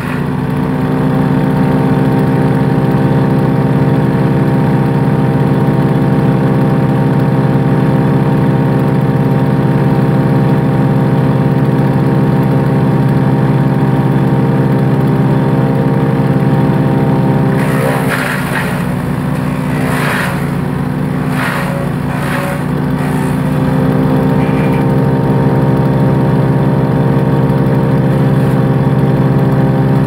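Hansa C16 wood chipper's engine running steadily at speed. About two-thirds of the way through, bamboo is fed in: the engine note wavers under the load and a run of sharp cracks comes as the stalks are chipped, before it settles back to a steady run.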